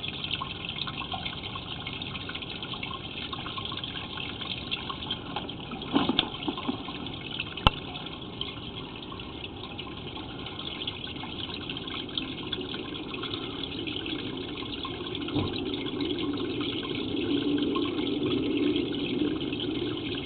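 Water running steadily, heard during a camera inspection of a cast iron sewer line, growing louder in the second half. A sharp click cuts through it about a third of the way in.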